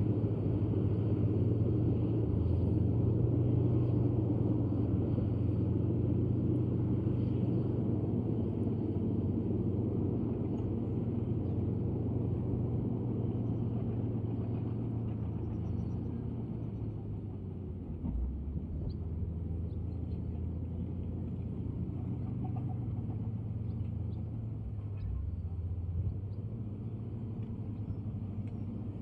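Komatsu D155A bulldozer's diesel engine working, a steady low drone that eases off a little past halfway, with a couple of dull thumps later on.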